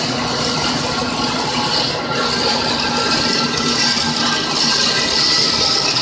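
13-die aluminium rod breakdown (RBD) wire drawing machine running: a steady, loud mechanical hiss with several steady whining tones beneath it.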